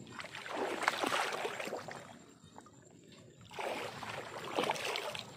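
Water sloshing and splashing as a hand dip net is swept through shallow pond water, in two bursts of about a second and a half each.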